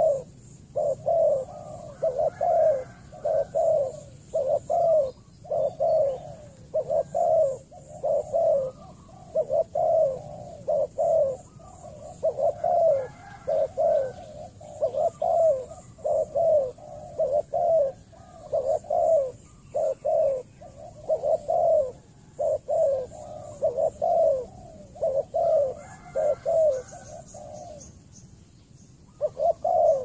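Spotted dove cooing over and over: short low coos in quick runs, with a brief pause near the end.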